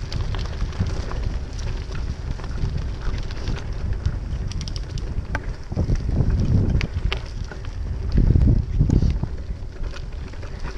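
Wind buffeting the microphone while riding, a heavy uneven rumble with scattered clicks and knocks, growing louder twice in the second half.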